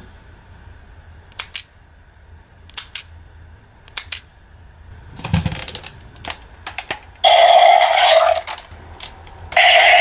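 Hard plastic clicks and snaps as a Zyudenchi battery piece is handled and loaded into a DX Gaburevolver toy gun, with a thud about halfway through. Then the toy's speaker plays two loud electronic sound effects, the first about seven seconds in.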